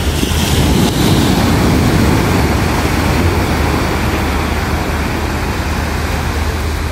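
Steady wind rumble on the microphone over the wash of surf breaking on a sandy beach.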